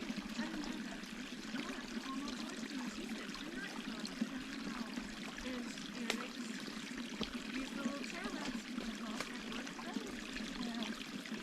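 A mountain stream trickling and gurgling over rocks, steady throughout, with a few sharp clicks.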